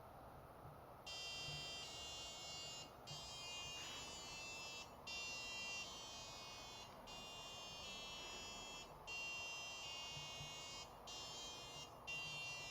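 A micro:bit light-sensor alarm going off, starting about a second in. It plays a run of buzzy electronic tones that change pitch every second or two, with short breaks between them.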